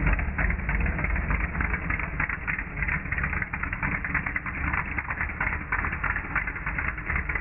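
Engine of a lifted mud-bogging pickup running as the truck rolls past: a deep, steady sound with a rapid crackle over it.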